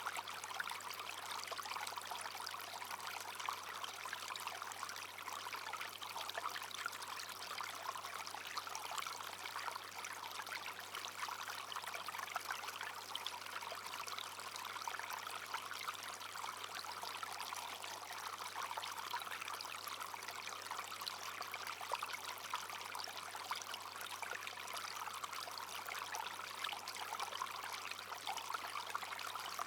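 Small brook flowing steadily over stones, a continuous babble of running water with fine trickling detail.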